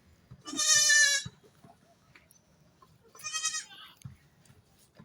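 Young goat kid bleating twice: a loud, high-pitched, quavering bleat near the start and a shorter one about three seconds in.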